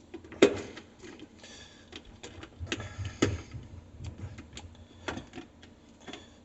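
Scattered sharp clicks and taps of a screwdriver and small metal parts being handled while a wire is tightened under a terminal screw. The loudest knock comes about half a second in, with a cluster of clicks around three seconds and another near five seconds.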